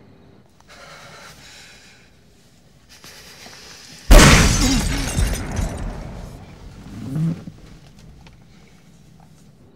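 Film soundtrack: a sudden, very loud gunshot about four seconds in, with glass shattering and a crash that fades over the next few seconds, then another loud swell near seven seconds.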